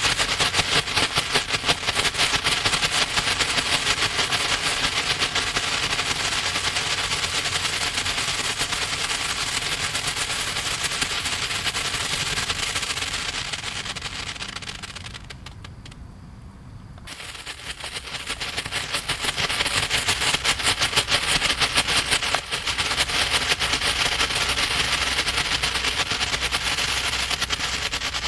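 Consumer ground fountain fireworks spraying sparks with a dense, rapid crackling, like a long string of tiny pops. The crackling dies away about halfway through, and a second fountain starts crackling a couple of seconds later.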